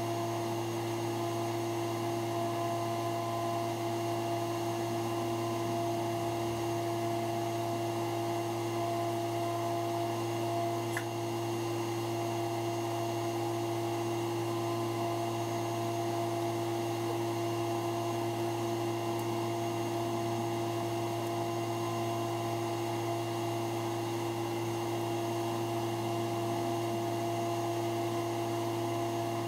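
Steady machine hum with several fixed pitches over a faint hiss, unchanging throughout.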